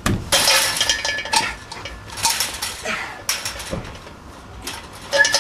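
Chain-link fence gate rattling and clanking under a person climbing over it, in several separate bursts of metallic jangling with brief ringing.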